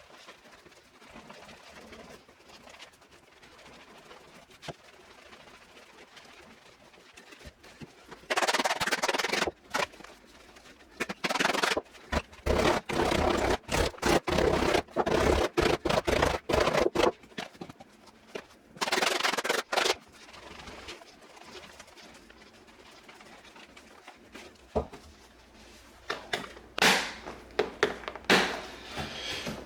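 Mallet beating the leather pocket of a new Rawlings VISE slow-pitch softball glove to break it in. The strikes come in rapid flurries of many blows, starting about a third of the way in and running for about twelve seconds, with a few more separate blows near the end.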